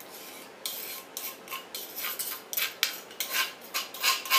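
A spoon scraping sauce out of a clay mortar in quick, repeated strokes. The strokes start under a second in and come faster, and a light metallic ring sounds in the later ones.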